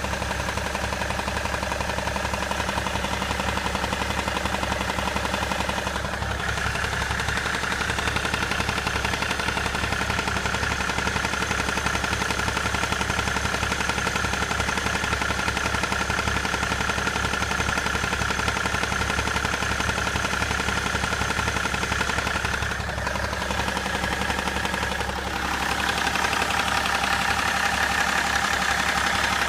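BMW 535d's 3.0-litre twin-turbo straight-six diesel running at idle with a repetitive knock from the front of the engine, loudest near the intercooler; the cause is not known. The tone of the engine sound shifts a few times.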